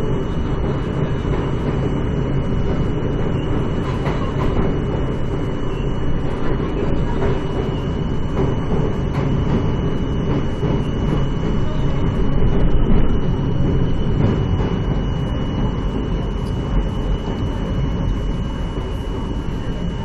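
R42 subway train running along the rails: a steady noise of wheels and motors, with a thin high whine over it, swelling slightly a little past halfway.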